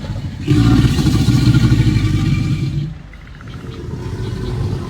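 American alligator bellowing: one deep, rumbling growl starting about half a second in and lasting about two and a half seconds, then a quieter low rumble. It is a call alligators use to communicate and attract mates.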